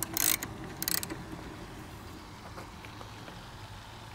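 Ratchet wrench with a 14 mm socket clicking in two short runs, right at the start and about a second in, as it tightens a pedal crank nut.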